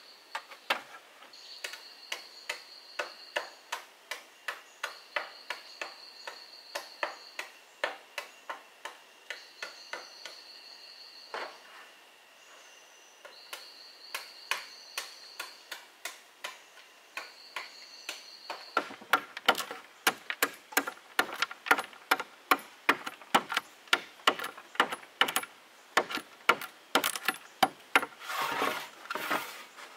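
A large knife chopping into split bamboo in quick sharp strikes, about three to four a second, cutting a notch. For the first half the taps are lighter and slower, about two a second, under insects calling in regular high pulses.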